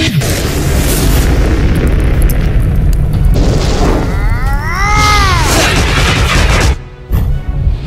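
Cartoon action sound effects: a loud, continuous booming rumble with a pitched whoosh that rises and falls about five seconds in. The sound cuts out briefly near the end.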